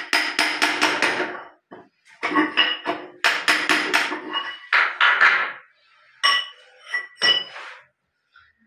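Hammer driving a steel chisel into hardened cement lodged in the drain of a ceramic Indian squat toilet pan, chipping it out of the clogged P-trap. Quick metallic strikes with a ringing clink, about four a second, break off briefly near two seconds in. A few slower strikes follow before they stop near the end.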